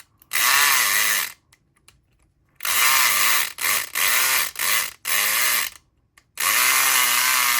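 SouthOrd E500XT electric lock pick gun running in six short bursts, its motor buzz rising and then falling in pitch with each press of the button, as its pick needle vibrates in a Schlage SC1 lock without opening it.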